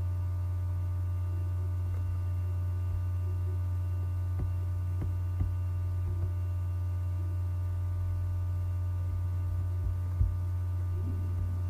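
Steady low electrical hum with a few thin steady tones above it, broken by a few faint short clicks, the kind a computer mouse makes: several in the middle and one near the end.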